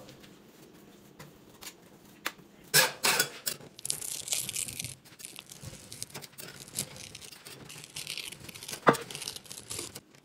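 Scattered crinkling and rustling with small clicks and knocks, a sharper knock about three seconds in and another near nine seconds, and a brief high hiss around four seconds in.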